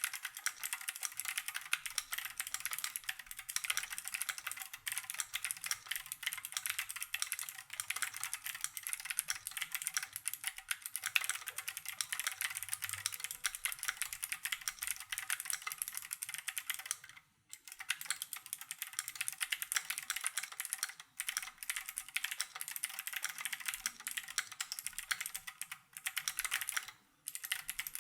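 Continuous fast typing on a Keychron Q1 prototype mechanical keyboard with factory pre-lubed Gateron G Phantom Blue clicky switches and stabilizers, keys clacking in a dense stream. Typing stops briefly about 17 seconds in and again near the end.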